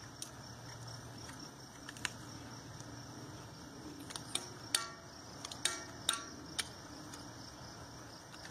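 Farrier's trimming tools working a horse's hoof: a handful of sharp metallic clicks and snips with a brief ring, most of them between about four and seven seconds in.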